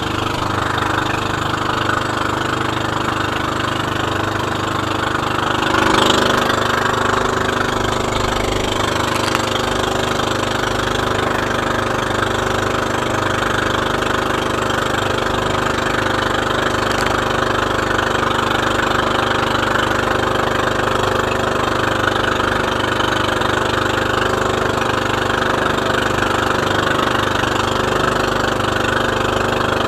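Outrigger motorboat's (bangka's) inboard engine running steadily under way, with the rush of sea water along the hull. A louder surge about six seconds in.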